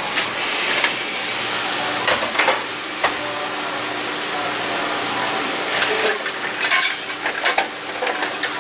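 Scattered clicks, knocks and rattles of hand tools and plastic parts as the air box and its intake ducting are taken off a car's engine, over a steady background hum.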